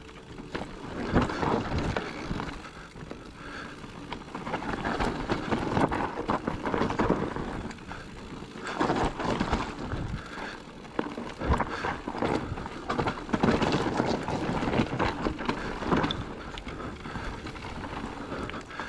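Trek Rail electric mountain bike riding fast downhill over a rough dirt and stone trail: tyres crunching and skidding over dirt, with frequent knocks and rattles from the bike over the bumps.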